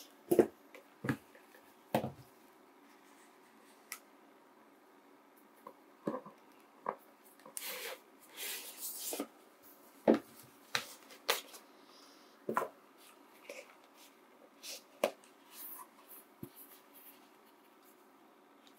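Cardboard eyeglasses boxes being handled: lids slid off and boxes set down, giving scattered light taps and knocks, with a longer stretch of cardboard scraping a little before halfway. Near the end the glasses case is lifted out of its box and opened.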